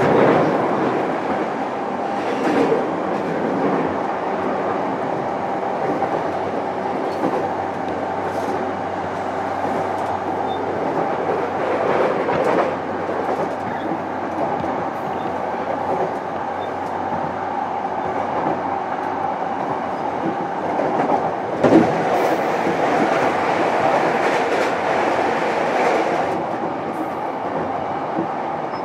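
JR East E233 series electric train heard from inside a car while running between stations: a steady rumble and hum of wheels on rail, with a few clacks over rail joints. The loudest clack comes about 22 seconds in.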